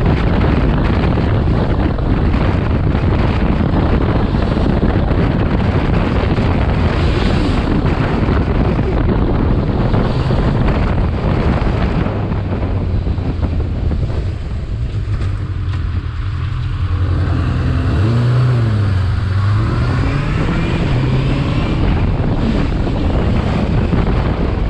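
Wind rushing over a helmet microphone at riding speed, with a Honda CBF inline-four motorcycle engine running underneath. About 14 seconds in the wind eases and the engine comes through more plainly, its pitch falling and then rising again as the bike slows and picks up.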